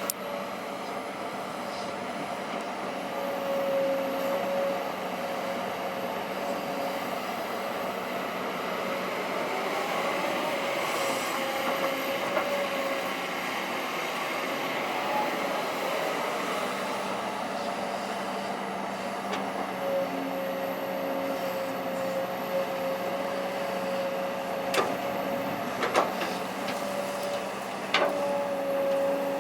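Kobelco SK200-8 Super XM excavator running and working, with a steady high whine that comes and goes and a few sharp clanks near the end.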